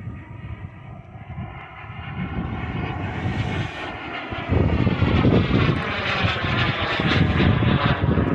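Radio-controlled model aircraft flying overhead while it trails smoke. Its engine sound grows louder and slowly shifts in pitch as it passes. From about halfway through, wind buffets the microphone with a heavy low rumble.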